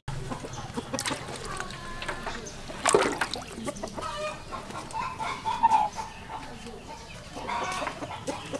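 Chickens clucking, a few separate calls.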